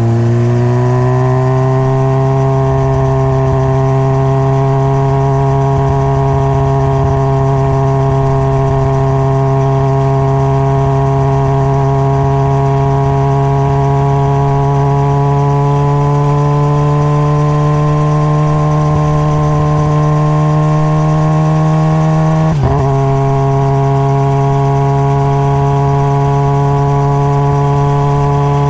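Honda CBR600RR's inline-four engine running at steady cruising revs while under way, its note creeping slowly higher, with a brief dip about three quarters of the way through. Wind rumble sits underneath.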